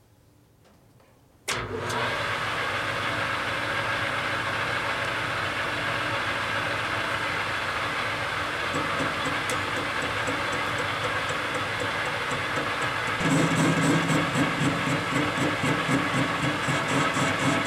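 Enco metal lathe starting up about a second and a half in, then running steadily as it spins a rough cast aluminium ingot in the chuck. Near the end the running gets louder, with a rapid, even pulsing.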